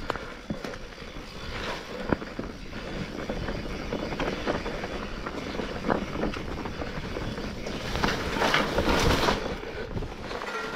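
Mountain bike riding over a rough dirt track: steady tyre and wind noise with scattered rattles and knocks, louder about eight seconds in.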